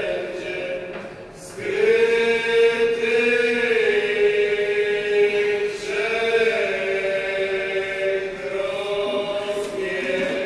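Chant-like vocal music of long held notes, each sustained for about four seconds, the first entering about a second and a half in and a second beginning near the middle.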